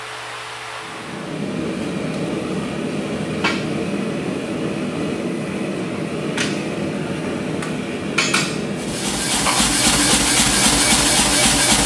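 Gas forge burner rushing steadily while a few sharp metal clinks ring out, steel tongs knocking against the steel stock and bench. About nine seconds in a louder, steadier rushing noise takes over.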